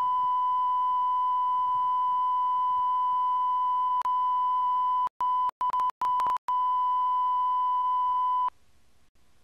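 Steady 1 kHz line-up tone recorded with SMPTE colour bars on videotape. It clicks once about four seconds in, drops out briefly several times between five and six and a half seconds, and cuts off suddenly about eight and a half seconds in, leaving faint tape hiss.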